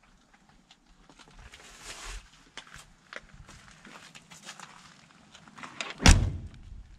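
Rustling and footsteps as someone climbs out of a 1963 Ford F100's cab, then one heavy thunk about six seconds in as the cab door is shut.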